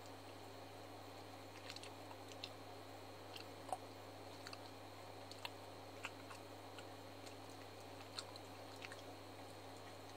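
Quiet mouth sounds of eating ice cream: scattered small clicks and smacks, about ten of them, over a steady low hum.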